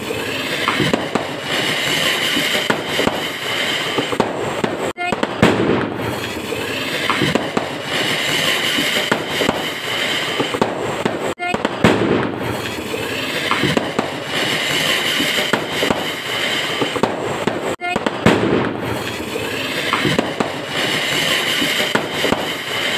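A short recording of fireworks going off with people's voices, looped so that the same stretch of about six seconds repeats over and over, with a brief dip in the sound at each join.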